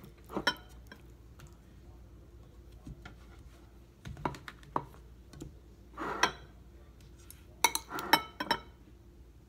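Cutlery clinking and scraping against a ceramic plate and bowl as turkey filling is spooned onto tortillas, in a few short, scattered sounds with the busiest bunch near the end.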